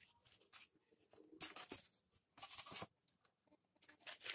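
Faint scraping and rustling of stiff paper loudspeaker cones being handled and shifted in a stack, in several short bursts.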